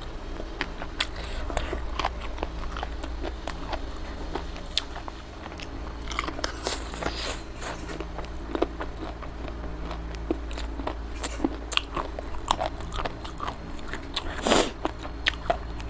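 Close-miked eating sounds: wet chewing and lip smacking of chicken and rice in gravy, with many short sharp mouth clicks and a louder wet smack about fourteen and a half seconds in.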